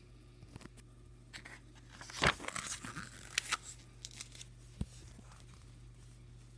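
Graphic novel's paper pages being handled and turned: a burst of rustling and crinkling with a few sharp clicks, loudest about two seconds in.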